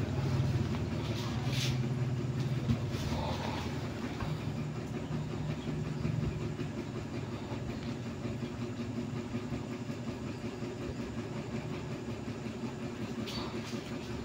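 A steady low mechanical hum with several even tones, stronger for the first six seconds, and a few faint knocks or rustles in the first few seconds.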